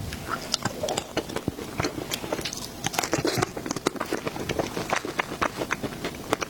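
Close-miked eating sounds: a person chewing and biting into a soft dessert, with many short, irregular mouth clicks.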